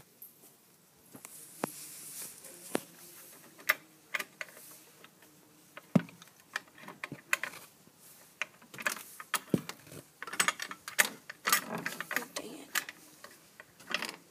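Irregular light clicks, taps and rustling scrapes from close handling, coming thicker in the last few seconds.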